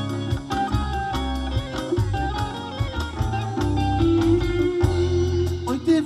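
Live rock band playing an instrumental passage without vocals: electric guitar lines over sustained bass notes and drums, with cymbal ticks keeping a steady beat of about four a second.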